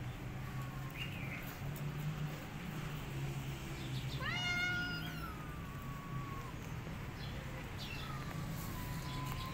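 A cat meowing. About four seconds in there is one long, clear meow that starts high and slides down over a couple of seconds. Fainter, thinner mews come near the start and near the end.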